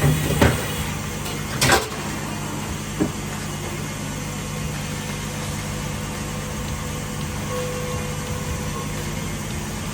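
CMZ TX66-Y2 Quattro twin-spindle CNC lathe running with a steady hum, with two sharp knocks in the first two seconds and a lighter one about three seconds in.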